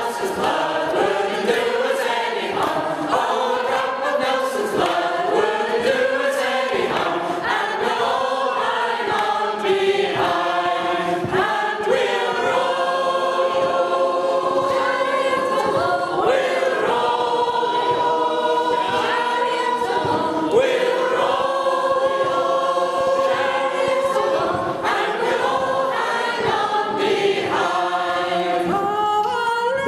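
Mixed-voice community choir singing unaccompanied in harmony, with long held chords in the middle stretch.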